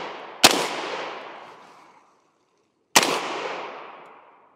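Two rifle shots from a semi-automatic AR-15, about two and a half seconds apart. Each is a sharp crack followed by an echo that fades over about a second and a half.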